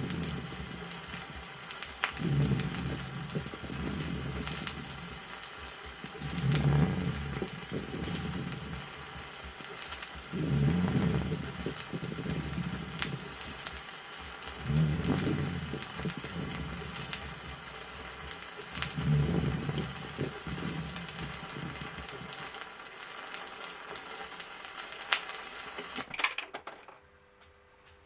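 Stethoscope recording of lung sounds in severe pneumosclerosis: low, humming dry rales (rhonchi) swell with each breath, about every four seconds, along with a few moist rales. It plays off a vinyl record with steady hiss and scattered surface clicks, and ends with a sharp click about 26 seconds in.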